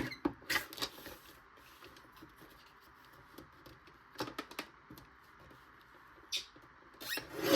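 Light clicks and paper rustling as paper is set in a guillotine paper trimmer, with a louder rasping cut near the end.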